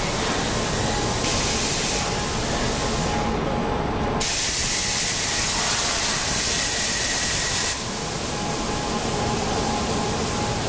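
Roll forging machine line running with a steady machine hum, broken by bursts of loud hiss: a short one about a second in and a long one lasting about three and a half seconds from about four seconds in.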